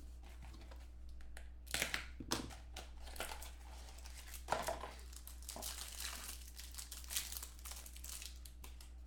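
Clear plastic wrapping from a pack of football trading cards crinkling and rustling in irregular bursts while the cards are handled, over a steady low hum.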